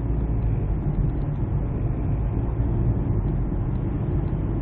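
Inside the cabin of a 2007 Hyundai Santa Fe diesel SUV under way on the road: a steady low rumble of engine and tyre noise.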